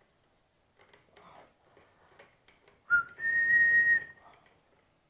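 Faint clicks and scrapes of a threaded airgun suppressor being turned off the barrel. About three seconds in, a person whistles a short note and then a steady higher note held for about a second.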